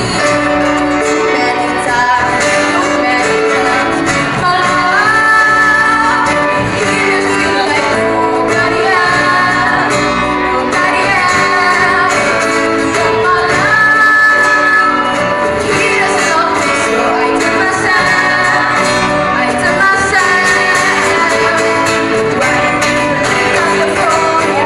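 Live acoustic pop band with a female lead vocalist singing over strummed acoustic guitars, cajón, keyboard and bass guitar.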